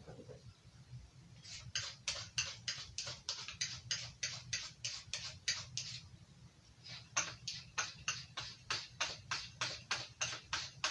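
Knife blade stroked quickly along a fine ceramic sharpening stone: short scraping rasps about three a second, in two runs of about a dozen strokes with a pause of about a second between them.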